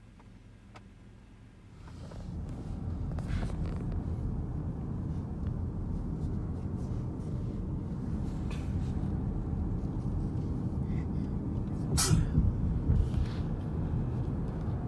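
Car moving off and driving, heard from inside the cabin: quiet for the first two seconds, then a steady low rumble of engine and road noise. One sharp click or knock comes late on.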